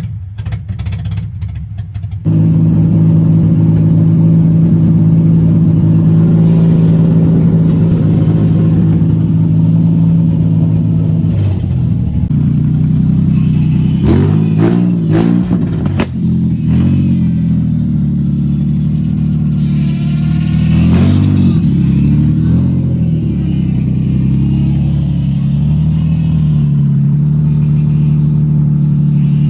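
Nissan 350Z's V6 engine running at a steady idle, getting louder about two seconds in. It is revved in a few short blips around the middle and again about two-thirds of the way through.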